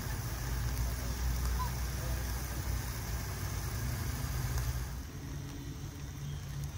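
A motor vehicle's engine running, a low steady rumble that fades somewhat about five seconds in.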